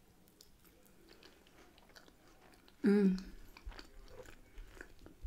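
Faint, close mouth-sounds of a person chewing a mouthful of pie and mushy peas: soft wet clicks. About three seconds in comes a short, louder voiced sound from the same person.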